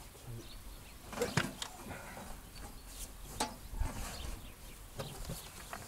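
A few sharp knocks and clicks with some rustling as a man shifts his weight from a wheelchair onto a small tractor's seat with a helper's assistance.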